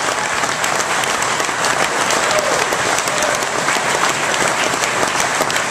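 Audience applauding, a steady mass of clapping that fills the pause in the speech.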